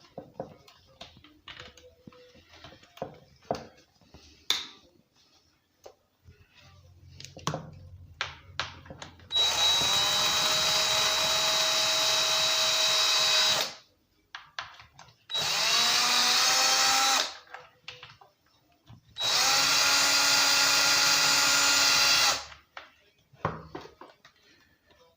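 Power drill with a Torx T25 bit running in three spells, about four, two and three seconds long, its whine rising each time it spins up, as it backs screws out of the chainsaw's plastic housing. Small clicks of parts being handled come before the first run.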